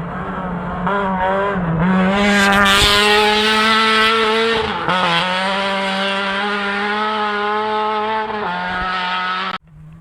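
A rally car's engine at high revs, holding a nearly steady pitch with brief dips from shifts or lifts. It grows louder about two seconds in as it comes closer, then cuts off abruptly near the end.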